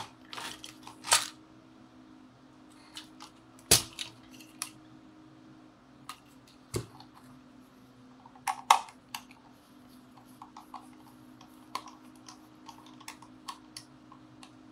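Scattered clicks and knocks of a plastic toy walkie-talkie being handled and a small screwdriver working at the screws on its back, with a sharp knock a few seconds in and a run of small quick ticks near the end.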